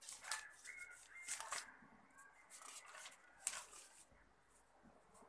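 Marker pen scratching on a whiteboard in short, irregular strokes, with a brief squeak about a second in.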